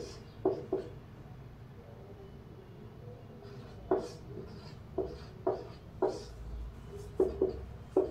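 Marker pen writing numbers on a whiteboard: about ten short strokes in small groups, with pauses between.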